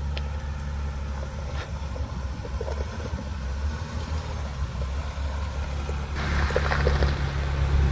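A 2021 Ford Bronco's engine runs steadily at low speed while crawling over rocks. About six seconds in, a louder crackling, gritty noise joins it.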